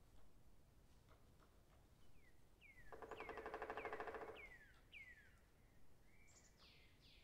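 Faint forest birdsong: a run of about six whistled notes, each sliding downward, with a fast rattling trill under them about three seconds in and a few quick, higher falling notes near the end.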